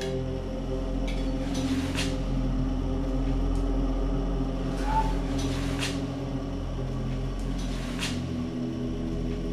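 A few light clinks of a metal spoon against a tin can over a steady low drone.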